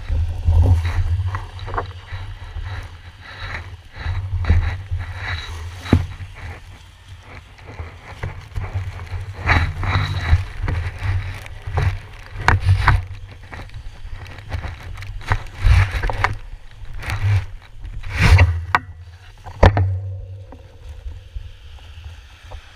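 Plastic sheeting rustling and crinkling right against a handlebar-mounted action camera, with irregular knocks and bumps of handling and a low rumble. It eases off shortly before the end.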